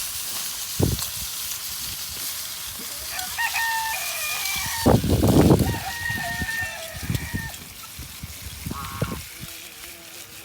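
A rooster crowing: two long calls, about three and six seconds in, then a short one near the end. A loud thump comes just before the second crow, over a steady high hiss.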